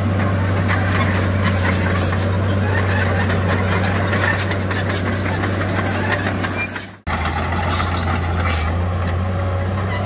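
Heavy diesel earthmoving machinery running steadily, a low engine hum with clanking and rattling over it. The sound fades out about seven seconds in and cuts straight back in.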